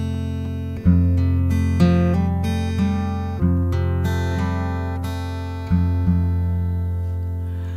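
Acoustic guitar playing a song's intro: ringing chords over a sustained low bass, a new chord struck about every two and a half seconds with single notes changing in between.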